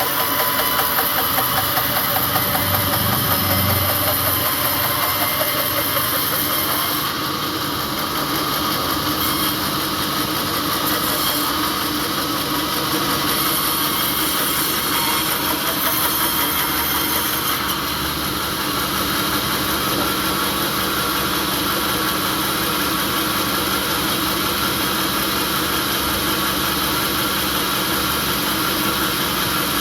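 Sawmill machinery running steadily, a continuous engine-like drone with no cutting strokes standing out.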